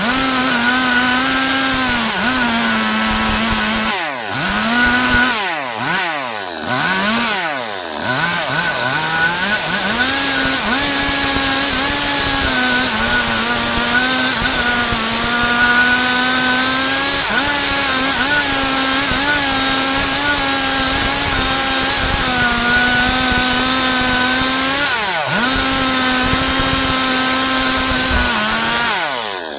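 Stihl MS 382 two-stroke chainsaw running at high revs, cutting lengthwise through a log to saw boards. The engine note dips and climbs back several times about four to eight seconds in and once more near the end, otherwise holding steady.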